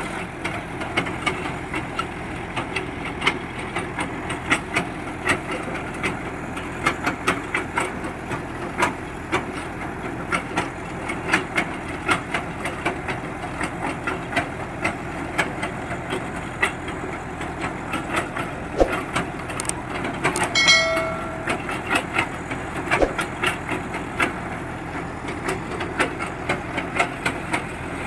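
Borewell drilling rig running: a steady engine drone with frequent sharp, irregular knocks and clanks from the drilling, and a brief high-pitched tone about twenty seconds in.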